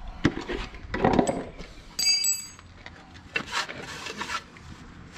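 Hand-work on a tractor's diesel fuel filter: a few knocks and scrapes of metal, a short metallic ring about two seconds in, and a stretch of rubbing about three and a half seconds in. The engine is not running.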